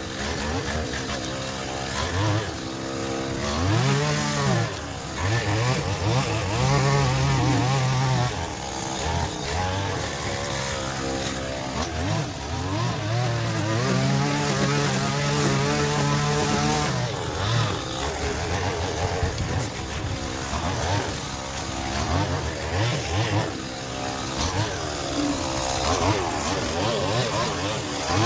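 Stihl petrol string trimmer cutting grass, its engine revving up and falling back again and again as the throttle is squeezed and released.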